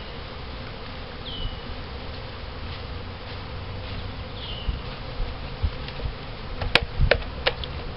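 A mass of agitated honey bees buzzing steadily as a package of bees is hived. A few sharp knocks come near the end as the wooden package box is handled.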